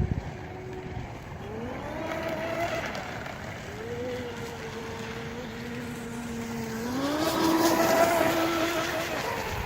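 Pro Boat UL-19 RC outrigger's brushless electric motor whining as the boat runs on the water. Its pitch rises about a second and a half in, holds steady, then rises again near the end, where it is loudest.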